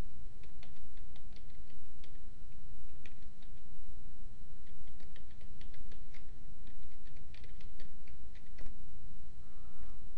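Typing on a computer keyboard: a quick run of irregular keystroke clicks over a steady low hum.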